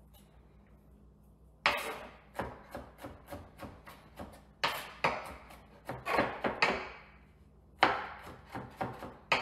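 Chef's knife mincing garlic on a cutting board: runs of sharp knocks, about three or four a second, that start about a second and a half in and pause briefly twice.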